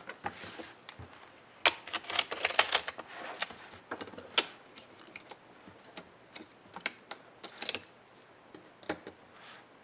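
Irregular clicks, taps and short scrapes of laptop plastic and metal parts being handled and pried apart with tools. The clicks come thick in the first half, then thin out to a few scattered ones.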